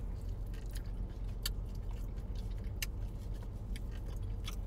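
Steady low hum with a few short, sharp clicks scattered through it.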